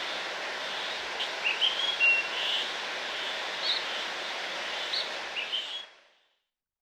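Steady rush of a waterfall with small birds chirping over it in short, high notes, about a dozen chirps in all. The whole ambience fades out about six seconds in.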